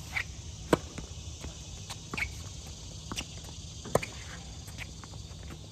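Tennis rally on a hard court: a sharp racket-on-ball crack from a serve under a second in, then another crack from a groundstroke about four seconds in, with fainter knocks between them from ball bounces and the far player's return.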